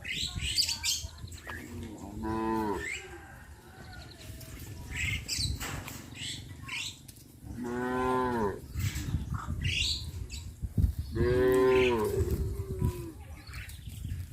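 Cows mooing: three separate drawn-out moos, each about a second long.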